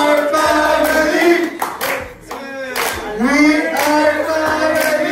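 A group of voices singing a chant together, with hand claps along with it.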